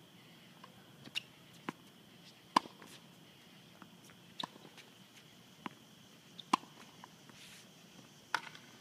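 Tennis play on an outdoor hard court: a dozen or so sharp clicks and knocks at irregular intervals, typical of ball bounces, racket hits and shoe scuffs, the loudest about two and a half, six and a half and eight seconds in. Under them runs a faint, steady high-pitched hum.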